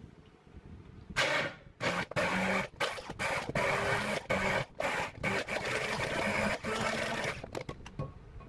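Immersion blender puréeing mango chunks into a dressing in a tall glass, its motor humming and the blade churning the mixture. It starts a little over a second in and runs in stop-start pulses with short breaks, then stops near the end.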